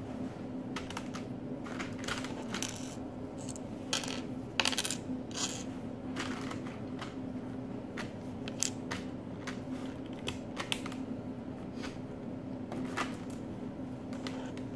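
Small plastic Lego pieces clicking and clattering as they are handled and fitted together, in scattered sharp clicks with a louder cluster about four to five seconds in.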